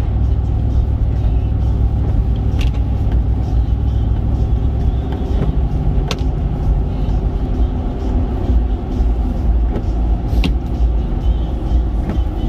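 Steady low road and engine rumble inside the cabin of a vehicle cruising on a highway, with a few light clicks a few seconds apart.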